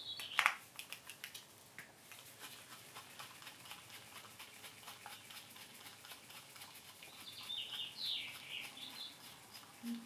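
Faint small clicks and scrapes of a screwdriver turning in a carburetor as the main jet is unscrewed, with one sharper click about half a second in. A bird chirps a few times near the end.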